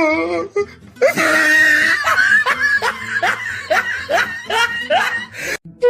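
Meme sound-effect clip of a person laughing: a wheezy outburst, then a run of short rising "ha" bursts, about two or three a second, that stops just before the end.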